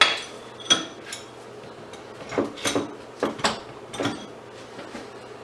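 Hand tools and metal parts clinking and clattering in an irregular run of about nine sharp metallic clinks, the loudest at the very start, while a stubborn, tight fastener is worked at during scrapping.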